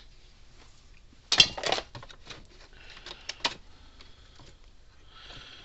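Clicks, knocks and rattles of hands working wires and terminals inside a plastic fence-charger case. A cluster of sharp clicks comes about a second and a half in, then lighter scattered clicks, and a brief soft rustle near the end.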